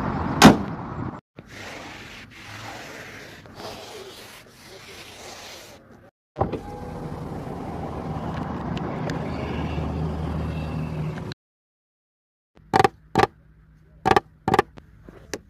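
Mercedes-AMG G 63 body and door sounds: two sharp thuds at the start, then a steady low mechanical hum for about five seconds, and near the end a run of sharp, short clacks like the door locks and latches.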